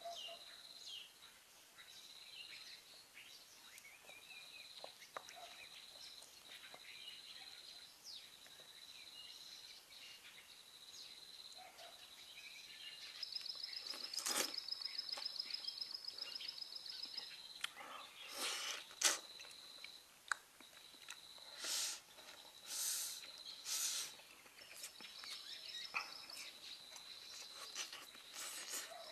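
Quiet outdoor ambience with a steady high-pitched insect trill and a faster pulsing call for a few seconds in the middle. A handful of short clicks and smacks from eating with chopsticks out of a porcelain bowl come in the second half.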